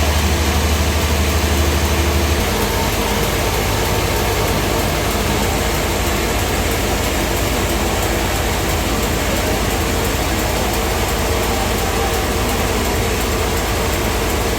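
Sawmill machinery running with a loud, steady noise; a deep low hum drops away about two seconds in.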